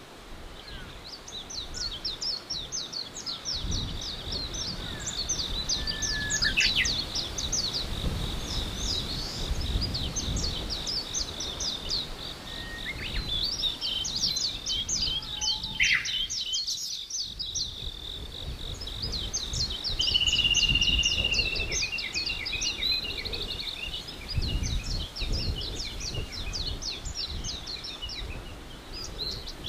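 Songbirds chirping in fast, dense trills over a steady high-pitched note, with a low rumbling noise in the background that swells and fades.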